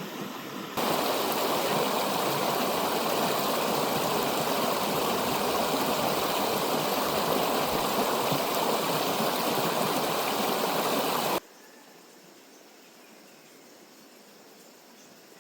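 Mountain river rushing in a steady, even wash of water noise. It cuts in abruptly about a second in and cuts off abruptly about eleven seconds in, leaving a much fainter steady hiss.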